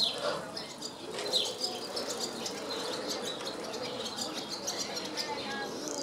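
Barn swallow singing from a perch: a fast, continuous twittering warble of chirps, with a buzzy rattle near the end.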